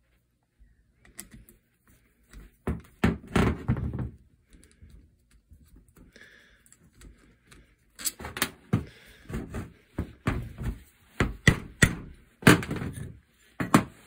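A screwdriver knocking and prying at the metal end cap of a tractor's coolant heater, metal on metal. A cluster of knocks comes about three seconds in, then a longer run of sharp clunks and taps from about eight seconds in.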